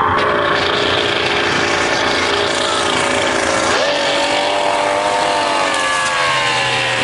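Outboard motor on a small speedboat running at high speed, with the hiss of spray. Its pitch jumps up sharply about four seconds in, then slowly sinks.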